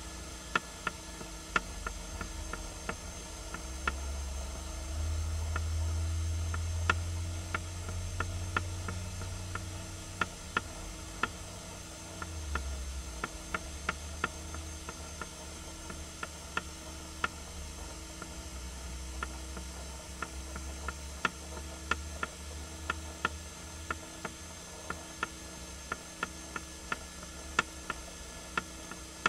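Irregular sharp ticks, about one or two a second, over a steady hiss and a low rumble that swells between about five and ten seconds in.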